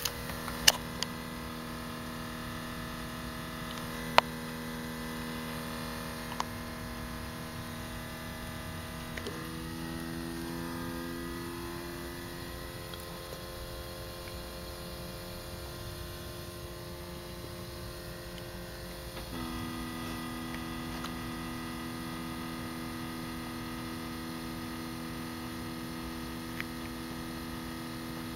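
Steady electric buzzing hum from the rear of a switched-off 2012 Scion tC, near the exhaust and fuel-tank area; it shifts to a different note about ten seconds in and back again near twenty seconds, with a few light clicks early on. Running hours after shutdown, it fits the evaporative-emissions leak-check pump that Toyota-built cars run on their own after the car has sat.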